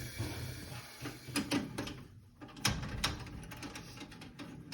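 Scattered light clicks and knocks of hands handling tools and test equipment at a gas furnace, over a faint steady hiss that fades in the first couple of seconds.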